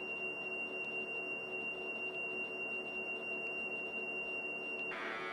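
Commodore program tape's lead-in tone: a steady, high-pitched pure tone a little under 3 kHz. About five seconds in it gives way to the rougher data signal of the file header.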